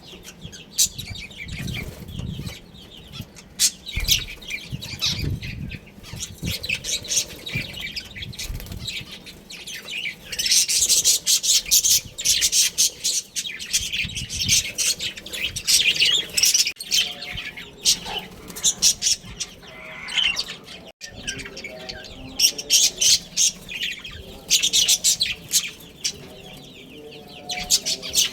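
Budgerigars chattering: rapid streams of short high chirps that come in bursts, busiest about ten seconds in and again near the end.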